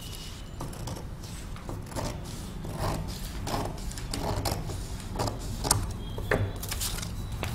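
Scissors cutting through brown paper pattern sheet: a run of about a dozen irregular snips, roughly one every half second to second, over a low steady hum.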